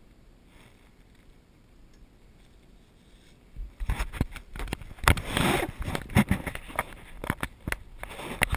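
Handling noise: a plastic bag rustling and the camera pole knocking and clicking, starting about three and a half seconds in and loudest a little after five seconds.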